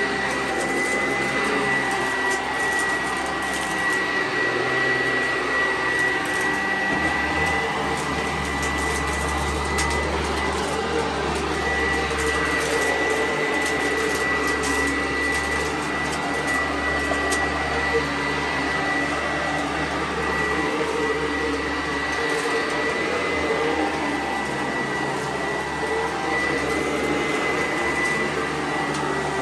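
Sanitaire commercial upright vacuum cleaner running steadily, its motor whine holding one high pitch throughout, with a deeper rumble swelling from about seven seconds in.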